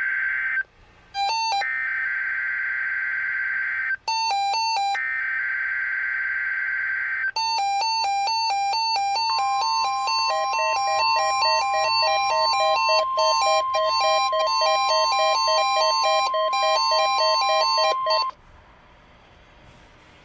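EAS/SAME digital header from NOAA Weather Radio, heard as harsh data bursts repeated three times, with an Eton ESP2100 weather radio's rapid two-tone alert beeping between them. About nine seconds in, the steady 1050 Hz warning alarm tone starts over the continuing beeps and runs for about nine seconds, then both stop abruptly. This marks the weekly test of the weather radio warning system.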